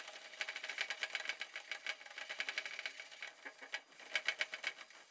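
Bristle scrub pad rubbed rapidly back and forth over the stainless steel inside of a grill lid, a fast run of scratchy strokes that falters briefly a little before four seconds. It is scrubbing degreaser into old grease stains on the steel.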